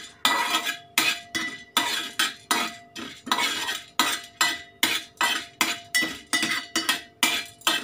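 Steel spoon scraping and stirring whole cloves in a stainless steel pan as they dry-roast over a low flame, in quick even strokes a little over two a second.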